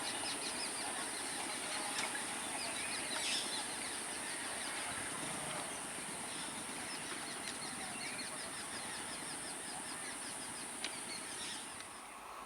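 Birds chirping in quick runs of short notes over a steady high-pitched whine and a soft background hiss. The whine fades out near the end.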